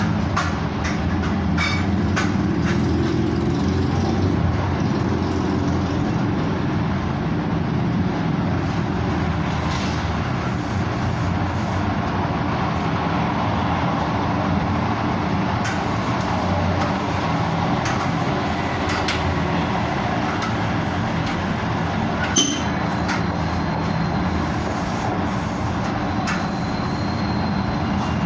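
Street traffic: a steady low engine rumble from motor vehicles running and passing on the road.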